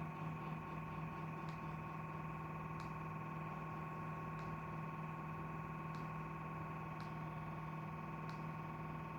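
Refrigerator running with a steady hum made of several fixed tones, with a handful of faint, brief ticks spread through it.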